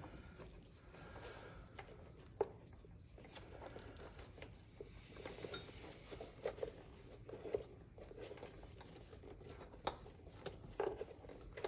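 Faint scattered clicks and soft rubbing of hands working a plastic electrical connector and wiring into place in a cramped spot, with a few sharper clicks.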